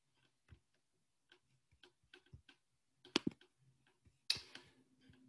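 A few faint, irregularly spaced clicks, with a sharper click about three seconds in and a louder knock about a second later.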